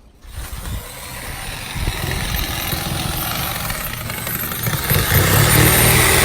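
Jigsaw running and cutting into a palm tree trunk, a dense buzzing saw noise that grows steadily louder, loudest near the end.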